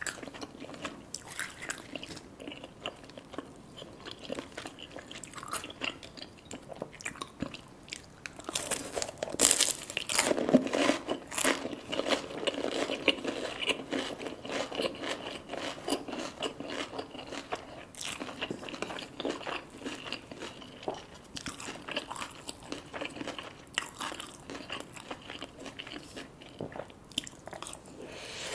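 Close-up crunching and chewing of crisp deep-fried food, a steady run of crackly bites with the loudest crunching about a third of the way in.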